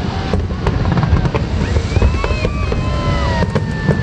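Fireworks display going off continuously: a dense rumble of deep booms with many sharp cracks layered over it. A few drawn-out high tones sound in the middle.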